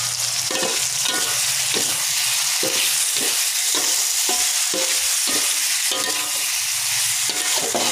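Sausage and eggplant in chili sauce sizzling in a wok as a metal spatula stirs it, scraping and knocking against the pan about twice a second, each stroke with a short metallic ring.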